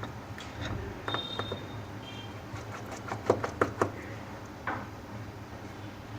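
Small, sharp clicks and taps from handling a smartphone and its parts on a repair bench, loudest in a quick cluster of four or five about halfway through, over a steady low hum.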